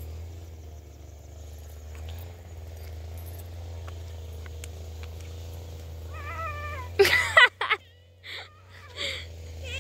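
An animal crying out: a wavering call about six seconds in, then a loud sudden burst of noise, then two shorter, softer calls near the end, over a steady low rumble.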